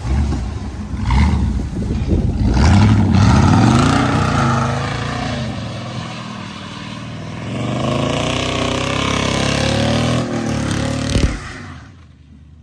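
Car engine revving several times, its pitch rising and falling, cutting off abruptly about eleven seconds in.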